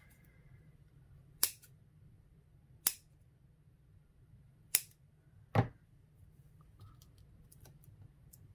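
Four sharp clicks, one to two seconds apart, from craft supplies being handled at a worktable; the last is a duller knock.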